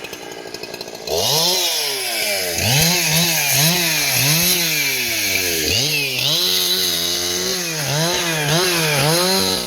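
Chainsaw engine revved over and over, its pitch rising and dropping about twice a second, starting about a second in.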